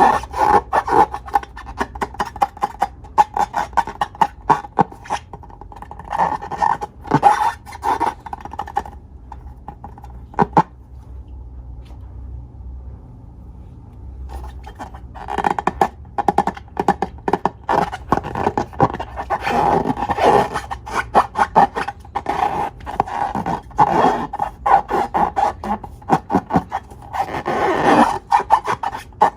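Slime being squeezed and worked by hand, giving dense sticky crackles and squelches. There is a quieter stretch around the middle before the crackling picks up again.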